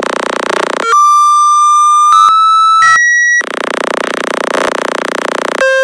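Speaker-cleaning sounds from the Fix My Speaker website playing on a phone at 100% volume, meant to push water and dirt out of the speaker. A buzzing noise gives way to steady beeps stepping up in pitch, then another long stretch of buzzing, and a lower steady tone near the end.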